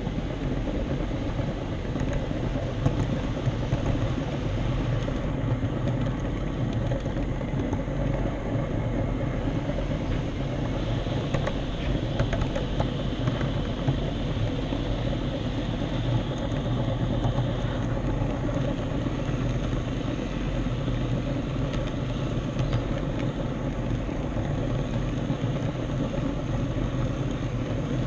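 HO scale model train running along the track: a steady motor hum and rolling rumble, with a few scattered clicks.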